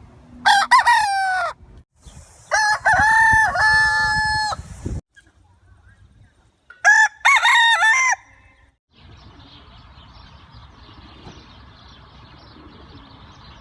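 Domestic rooster crowing three times in separate crows, each cut off abruptly, about half a second, two and a half seconds and seven seconds in. The last several seconds hold only faint background hiss.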